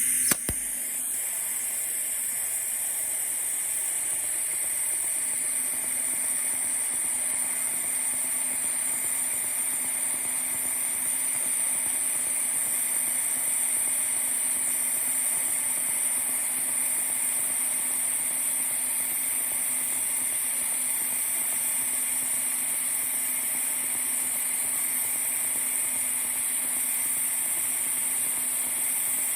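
Pulsed TIG welding arc burning steadily: a constant buzzing hiss with a steady hum underneath, after a sharp click at the very start.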